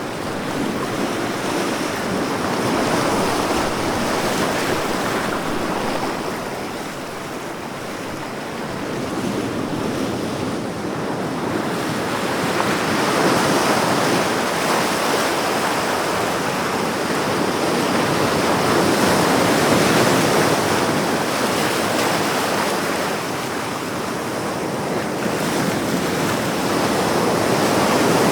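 Ocean surf: a continuous wash of breaking waves, swelling and easing slowly every several seconds.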